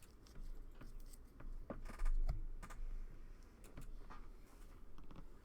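Baseball trading cards and pack wrappers being handled on a table, with soft rustles and scattered light clicks and a dull thump about two seconds in.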